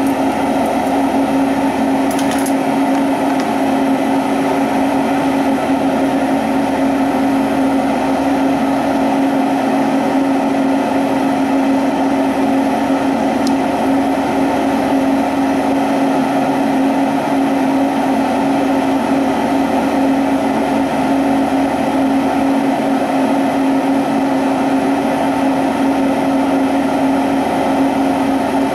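Steady rushing roar of a lampworking bench torch's flame as it heats glass, with a constant low hum underneath.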